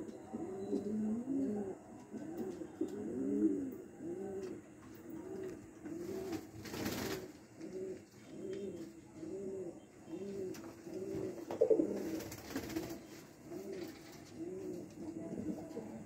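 Domestic pigeons cooing: a steady run of low, arched coos, a little over one a second, with several birds overlapping in the first few seconds. A brief rustle comes about seven seconds in.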